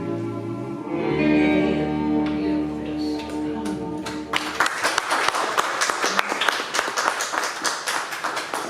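A song accompanied on guitar ends on a held, ringing chord; about four seconds in, the congregation breaks into applause, which goes on to the end.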